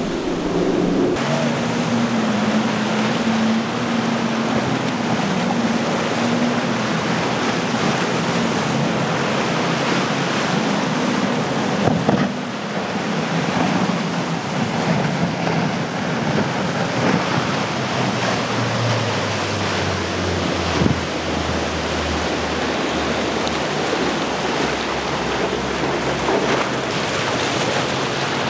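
Outboard engines of center-console boats running at speed, a steady drone over the loud hiss of spray and wake. After a cut about halfway through, a deeper engine note drops in pitch as a boat goes by.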